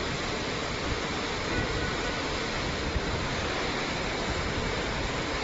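Steady, even rushing background noise with no distinct events or tones.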